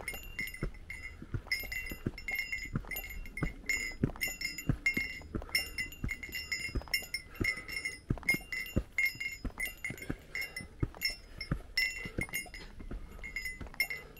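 Small hiker's bell jingling with each step, about two rings a second, over the thud of footfalls.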